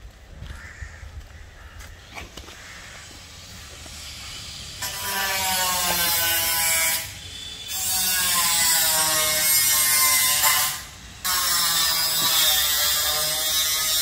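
A loud mechanical buzz starts about five seconds in and runs in three long stretches broken by two short pauses; before it there is only faint outdoor sound.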